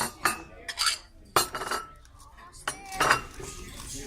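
Dishes and cutlery clinking on a table: several sharp clinks of plates and silverware being set down and handled.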